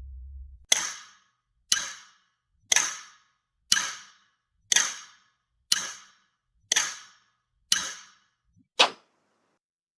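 A sound effect of nine sharp clicks, evenly spaced about one a second, each with a short fading tail; the last one is shorter and sharper.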